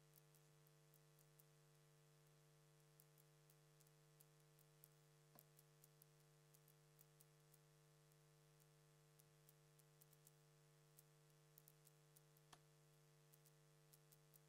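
Near silence: a steady low electrical hum with faint scattered ticks, and two slightly stronger clicks about five seconds in and near the end.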